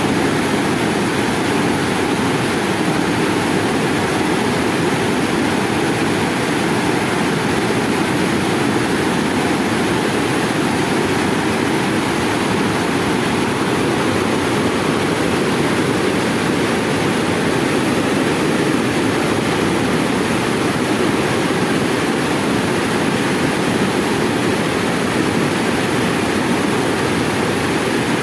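Water pouring over a river dam's weir: a loud, steady rushing noise with no let-up.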